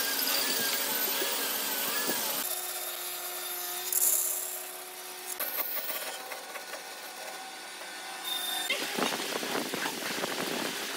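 Band saw running, its blade cutting through a thick block of wood, from about two seconds in, with a louder rush of cutting a little later. Near the end it gives way to a brush scrubbing glue onto a wooden board.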